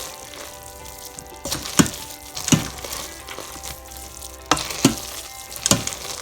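A spoon stirring cooked jambalaya rice in an Instant Pot's stainless steel inner pot: a soft wet scraping with about six sharp knocks of the spoon against the pot.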